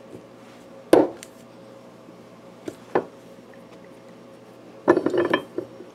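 Sharp metallic clicks and knocks as Alnico 5 magnet rods are pressed one at a time into a Telecaster pickup's flatwork bobbin under a small bench press. There is a loud knock about a second in, two lighter ones around three seconds, and a quick clatter of clicks near the end.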